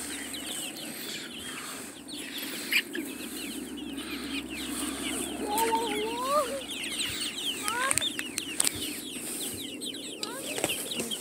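Flock of young Leghorn and Black Australorp chickens clucking and cheeping, with many short high calls overlapping, and a few longer rising calls about halfway through.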